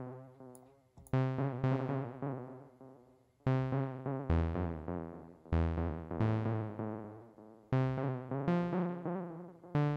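Software synthesizer playing a repeating phrase of keyboard-like notes through Ableton's Echo delay with its wobble modulation switched on, so the tone and its echoes waver in pitch. Each note starts sharply and fades away.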